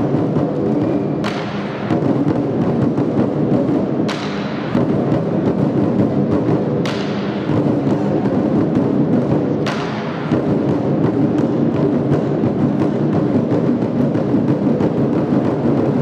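Large Chinese barrel drums beaten with sticks by an ensemble of three drummers in a fast, continuous, loud pattern. Sharp ringing accents cut through about every three seconds in the first ten seconds.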